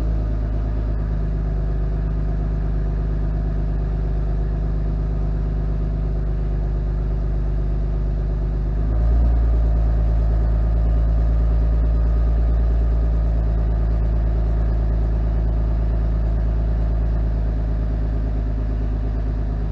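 1992 Toyota Aristo's 2JZ-GTE twin-turbo 3.0 L straight-six idling steadily through its Apexi performance exhaust, just after a cold start with the engine and mufflers still cold. About nine seconds in, the idle note shifts and gets slightly louder, then holds steady.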